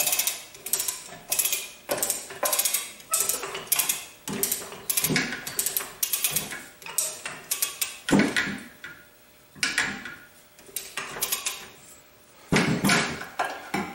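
Irregular metal clanks and rattles as the cylinder block of a Quincy 325 two-stage air compressor, hung from a chain hoist, is rocked and worked up off the crankcase, with its pistons and connecting rods loose inside.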